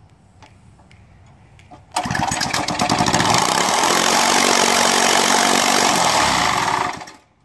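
3.5 hp Briggs & Stratton single-cylinder small engine starting about two seconds in and running loud and fast for about five seconds, then dying down near the end as dirt is thrown into its intake.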